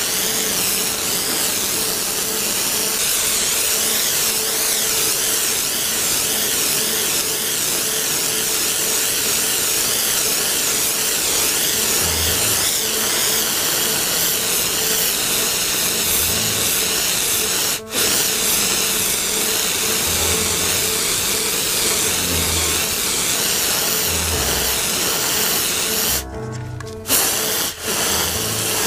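Inverted can of compressed air spraying liquid propellant onto a heated car bumper to chill the dent, a steady loud hiss, with background music over it. The sound cuts out abruptly for a moment about 18 seconds in and again a couple of times near the end.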